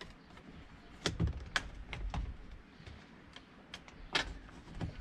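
Plastic trim tool prying at a car door trim piece: scattered sharp clicks and knocks of plastic against the door panel as the retaining clips resist, a cluster about a second in and more near the end.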